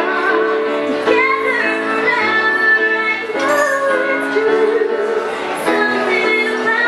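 A woman singing a ballad melody into a microphone, accompanied by a Casio Privia digital piano playing held chords that change every second or so.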